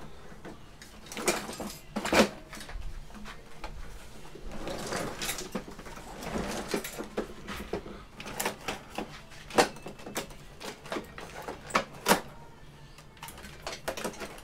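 Plastic and metal parts of a Sony projector being handled and pulled apart by hand: scattered clicks and knocks, with a stretch of rustling and scraping in the middle.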